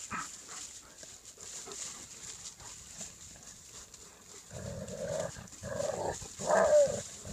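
Dog gnawing and clawing at a pine trunk's bark with faint scraping clicks, then dogs growling from a little past halfway, with a brief falling whine near the end.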